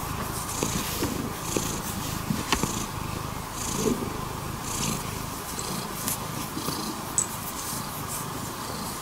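Domestic cat purring steadily at close range, the purr swelling and easing with its breaths about once a second.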